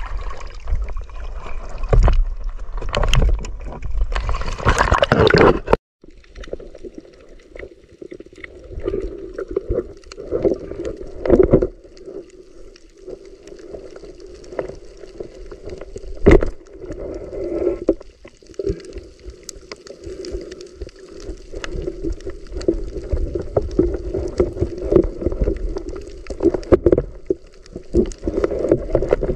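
Water splashing at the surface for the first six seconds, cut off suddenly. Then muffled underwater sound picked up by a waterproof camera swimming over seagrass: a steady low rumble with many scattered clicks and knocks.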